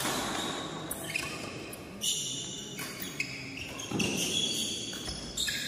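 A badminton rally: a series of sharp racket-on-shuttlecock hits about a second apart, each with a short ringing echo off the hard walls of an indoor sports hall.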